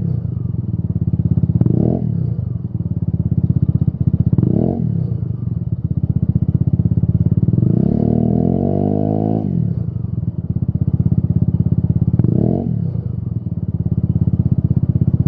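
Peugeot Speedfight 125 scooter's single-cylinder engine running through a Lextek SP8C aftermarket silencer. It idles between three short throttle blips and one longer rev held for about two seconds midway, the pitch rising and falling each time.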